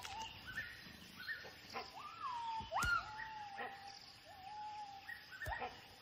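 Gibbon calling: a series of whooping notes, each sweeping quickly up in pitch, some held as a long level note, with two sharp knocks among them.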